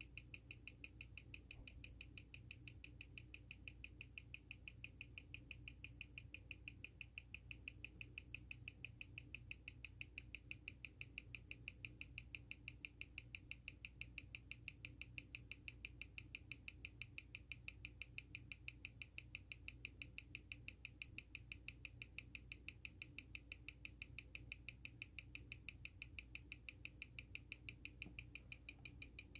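Faint, rapid, evenly spaced ticking of a Seiko SARB035's automatic movement on a timegrapher, six beats a second. The timegrapher reads the ticks as even, with a beat error of 0.1 ms, an amplitude of about 240° and a rate of about −4 seconds a day.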